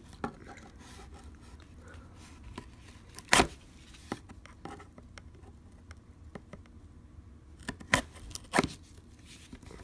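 Sealed cardboard trading-card box being worked open by hand, its side seal being broken: scattered sharp clicks and scrapes, the loudest a third of the way in and a few more near the end.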